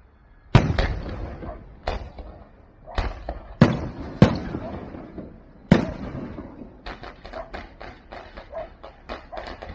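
Aerial firework shells bursting overhead: about six loud bangs in the first six seconds, each trailing off in an echo, then a quick run of smaller pops and crackles to the end.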